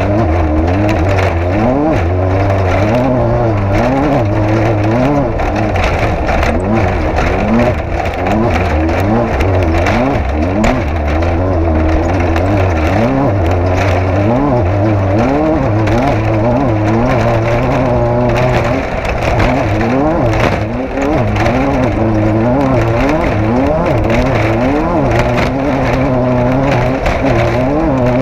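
An off-road race vehicle's engine runs hard, its pitch rising and falling every second or so as it revs up and eases off, with frequent knocks and rattles throughout.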